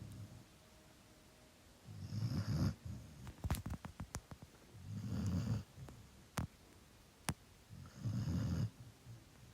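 A sleeping pet snoring loudly: one long, deep snore about every three seconds, three in all. Between the snores come a few short, sharp clicks.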